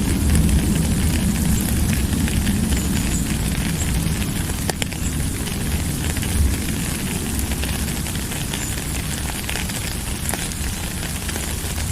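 Steady rain falling, a dense hiss with a deep low rumble underneath and scattered crackling drop clicks, one sharper tap about five seconds in.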